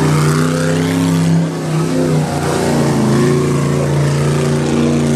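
Rock crawler's engine revving hard and steady as it spins doughnuts in deep mud, the revs dipping briefly about halfway through before picking back up.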